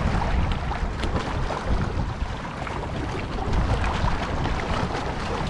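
Wind buffeting the microphone with a steady low rumble, over small sea waves lapping and splashing against rocks.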